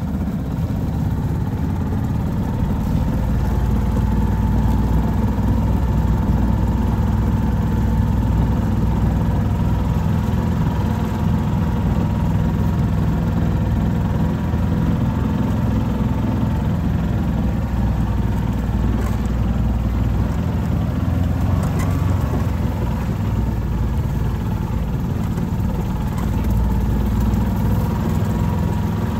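A vehicle engine running steadily at low speed, heard from inside the cab, while the vehicle creeps along a rough grassy trail. It is a deep, even rumble with a faint steady tone above it.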